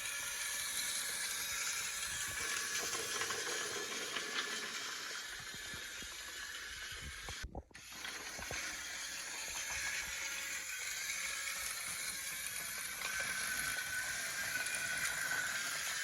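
Battery-powered motorized Wooden Railway Spencer toy engine, fitted with a faster replacement motor, running along its track: the small electric motor and gears whir steadily. The sound cuts out briefly about halfway through.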